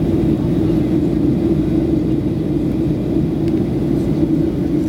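Steady low rumble inside the passenger cabin of a Boeing 737-700 on approach: its CFM56 jet engines and the air rushing past the fuselage.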